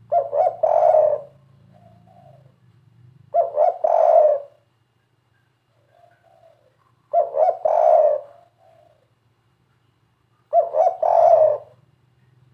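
Spotted dove giving its three-note 'kuk 3' coo four times, about every three and a half seconds: two short notes, then a longer one, each time.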